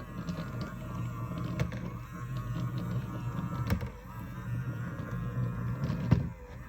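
Small battery-powered robot cleaner's drive motor whirring steadily, with a few sharp knocks.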